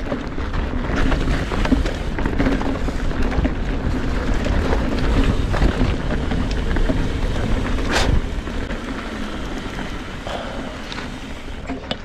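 Wind buffeting the camera microphone over the rumble of a Trek Fuel EX 7 mountain bike's tyres on a dirt trail, with the small rattles and clicks of the bike over rough ground. A sharp knock comes about eight seconds in, and the noise eases a little after it.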